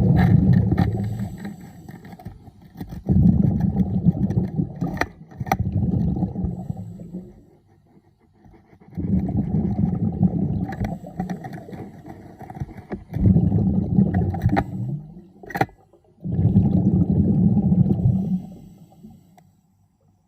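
A diver's exhaled air bubbling out underwater in low rumbling bursts of two to three seconds, about six of them, with short quiet breaks between for each breath in. A few sharp clicks sound between the bursts.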